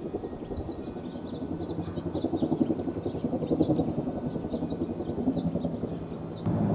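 A low, uneven rumble that swells in the middle, with faint short high chirps above it. Near the end it jumps suddenly to a louder, steadier hum.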